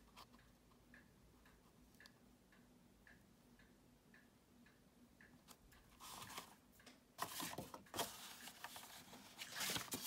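Faint, even ticking, about two ticks a second, then from about six seconds in, rustling and scraping of folded card stock being picked up and handled on a cutting mat, loudest near the end.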